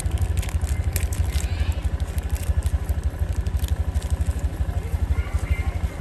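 An engine running steadily with a regular low throb, about ten beats a second, with faint clicks and scrapes over it.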